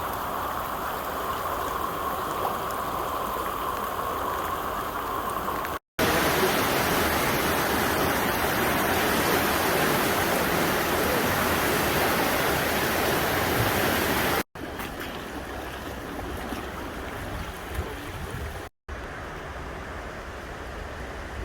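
Rushing river water, a steady dense noise in several separate shots joined by abrupt cuts. It is loudest in the second shot, from about 6 to 14 seconds in, and quieter after the cut near 14 seconds.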